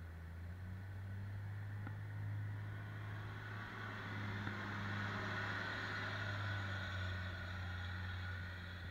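John Deere 524K-II wheel loader's diesel engine running as it drives past, loudest about halfway through as it passes close, then easing off as it pulls away.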